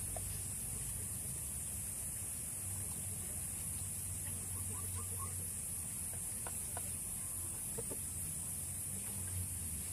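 Faint clucking of chickens, a few short calls in the middle, over a steady high hiss and low hum.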